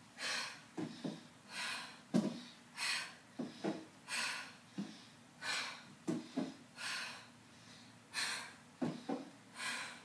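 A person breathing hard through a plank exercise, a heavy exhalation about every second and a half, about eight in all. Between breaths come pairs of light, low thumps as her feet come back down onto the aerobic step.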